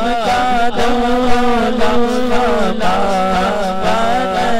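A man reciting a naat, singing an unaccompanied devotional melody into a microphone in a long, wavering, chant-like line. A steady low drone holds beneath the voice.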